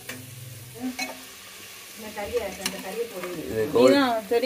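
Chicken and onions sizzling as they fry in a pot while a spoon stirs them, with a few sharp clinks of the spoon against the metal. Near the end a voice calls out loudly, its pitch rising and falling.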